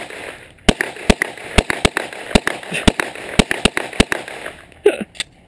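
A firearm fired in a rapid string, about two to three shots a second, as a timed speed-and-accuracy drill without using the sights; the shooting stops about four seconds in, followed by a short, lower sound near the end.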